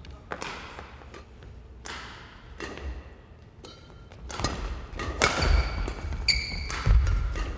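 Badminton rally on an indoor court: sharp cracks of rackets striking the shuttlecock, shoes squeaking on the court floor and heavy thumping footfalls, getting busier about four seconds in.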